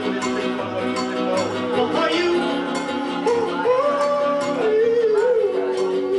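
A song playing: a voice sings long, held notes that slide between pitches, over instruments and a steady beat.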